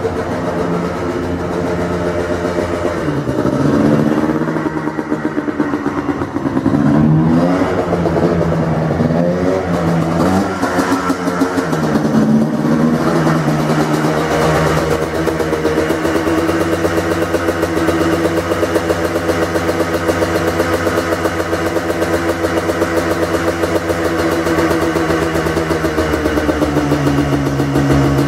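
The 2005 Yamaha Blaster's freshly rebuilt air-cooled single-cylinder two-stroke engine running through its FMF Powercore 2 exhaust. In the first half it is revved in a series of quick throttle blips, each rising and falling in pitch. It then settles to steady running, and its pitch drops to a lower idle near the end.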